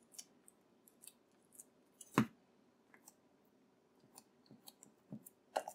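Scattered quiet, sticky clicks of hands pinching and shaping an oiled ball of roti dough and setting it on a countertop, with one sharper click about two seconds in and a few more near the end.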